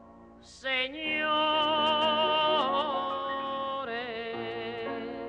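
Music comes in about half a second in, after a brief lull: a slow melody of long held notes with vibrato, sliding from one note to the next.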